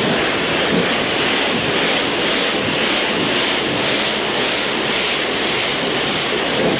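Pressure washer spraying water onto farm machinery: a loud, steady hiss.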